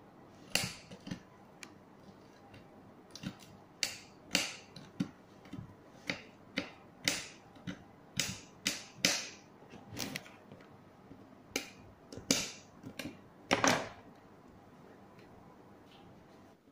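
Knife chopping garlic on a hard glass cutting board: sharp, irregular taps and clicks, about one or two a second, stopping about 14 seconds in.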